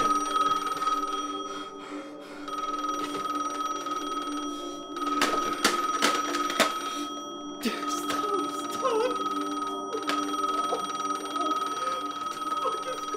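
Electronic noise on a corded telephone line: steady tones held throughout, with scattered clicks and crackles.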